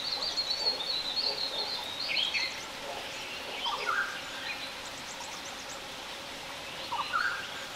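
Wild birds chirping and calling in scattered short phrases, busiest in the first couple of seconds, over a steady background hiss of open scrubland.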